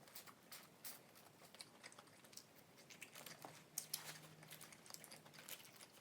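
Close-up eating sounds of someone chewing chicken wings: soft wet mouth clicks and small smacks coming irregularly, a little louder around four seconds in.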